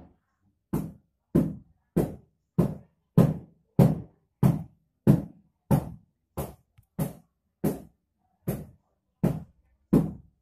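A steady series of heavy knocks, about one and a half a second, each sharp and quickly dying away.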